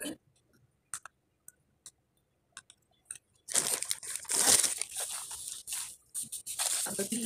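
A few sparse, soft crunchy clicks, then about three and a half seconds in, loud crinkling and rustling of plastic snack-bag packaging right at the microphone for a couple of seconds, with a shorter burst of rustling near the end.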